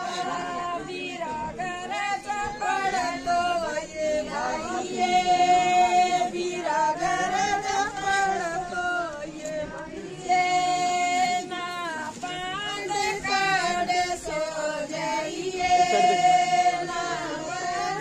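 A group of women singing together in chorus, a traditional wedding song, with long held notes.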